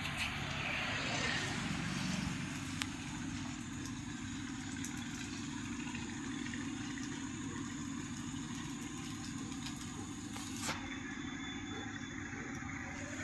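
An engine running steadily at an even pace, with one brief sharp knock near the end.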